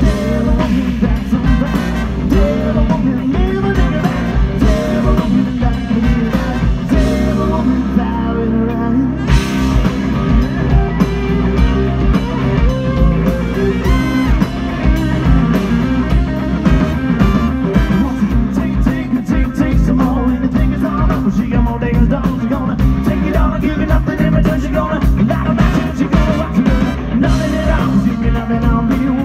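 Live rock band with a horn section playing: electric guitars, bass, drums and brass, with a male lead vocal.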